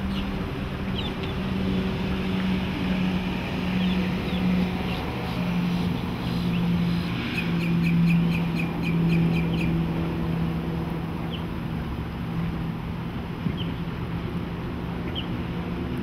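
Twin Yamaha F115 four-stroke outboards running at speed on a passing boat: a steady, pulsing drone that drops slightly in pitch and is loudest about halfway through. Birds chirp over it throughout.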